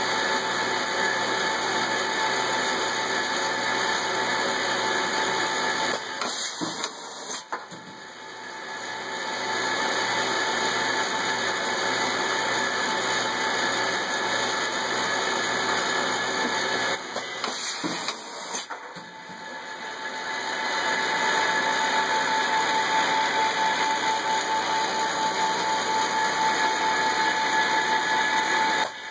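Automated laser-marking and parts-handling machine running: a steady mechanical hum and hiss with a low, even pulse underneath. The noise dips twice, then builds back up.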